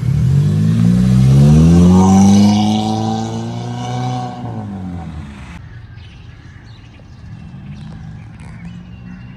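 Toyota Aqua hybrid's 1.5-litre four-cylinder engine revving hard as the car pulls away. The pitch climbs for about two seconds, then the sound fades over the next few seconds as the car drives off.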